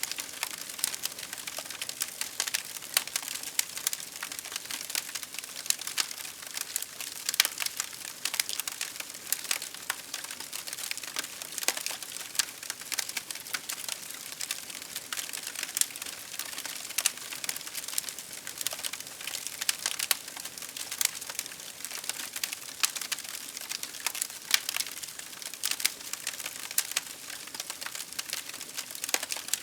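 Wood fire crackling: a dense, irregular run of small pops and snaps over a soft hiss.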